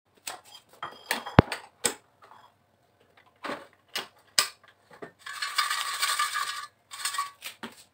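Plastic clicks and knocks of an air fryer's basket being handled and pulled out, one sharp knock about a second and a half in the loudest. Then about a second and a half of rattling as the basket of cooked fries is moved, and a few more knocks near the end.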